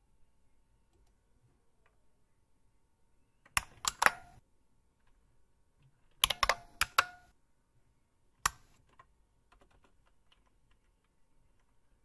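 Emulated IBM Model M buckling-spring keystrokes played by the bucklespring program: loud, sharp clacks with a short ringing tail, in a group of three or four about three and a half seconds in, a quicker run of about five around six seconds, and a single one at about eight and a half seconds. After that only faint, soft taps of a laptop keyboard are heard.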